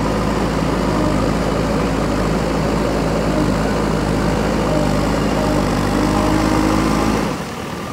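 JCB backhoe loader's diesel engine running steadily as the front loader bucket digs into a soil pile and lifts a load. The engine sound drops away abruptly near the end.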